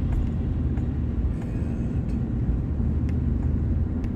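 Steady low rumble of a truck's engine and tyres on the road, heard from inside the cab while driving.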